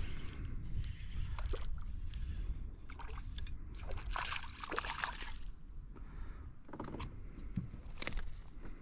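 A small smallmouth bass splashing at the surface as it is reeled in on a light baitcasting rod, loudest about four to five seconds in. A few sharp knocks follow near the end as the fish is swung up out of the water.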